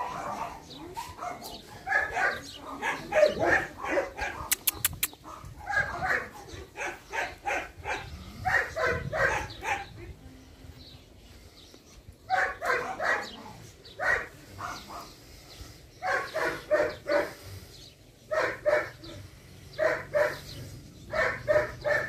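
A dog yelping in runs of quick, short yelps, about a second or so each, with pauses between the runs.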